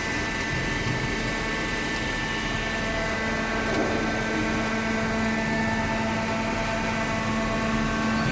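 Hydraulic cardboard baler running: a steady machine drone with several steady humming tones and no strokes or impacts.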